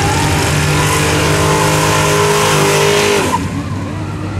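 Car engine revving hard as it launches with wheelspin, tyres screeching under the engine note. The revs climb, hold, then drop off sharply a little over three seconds in.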